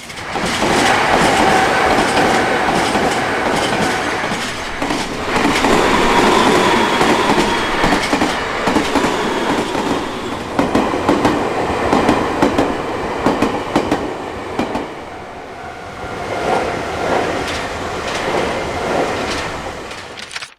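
Nankai Koya Line electric trains passing close by at level crossings: loud running noise with the wheels clacking over rail joints, changing abruptly a few times as clips cut from one train to the next.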